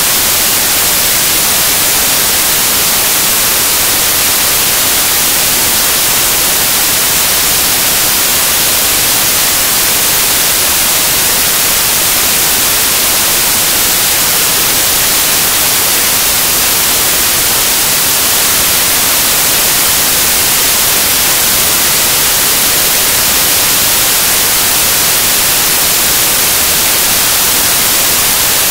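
Loud, steady static hiss, brightest in the treble, with no other sound rising above it.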